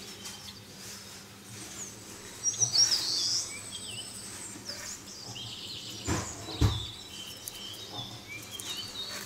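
Small birds chirping in short, quick, rising and falling calls, loudest about two and a half to three and a half seconds in. A single low thump comes about six and a half seconds in.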